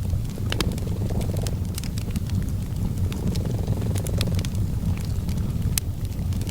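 A cat purring in a steady low rumble, mixed with a wood fire crackling in short sharp pops scattered irregularly throughout.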